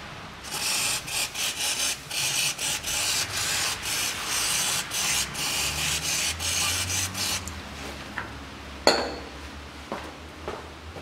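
Aerosol spray can hissing in a quick series of short bursts for about seven seconds as it washes spilled gear oil off a transfer case, then stopping; a single sharp click follows near the end.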